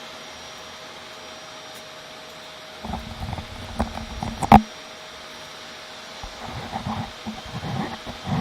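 Vacuum cleaner running steadily in the background with a constant hum. Two stretches of low rumbling knocks and rustles sound over it, the loudest a sharp knock about four and a half seconds in.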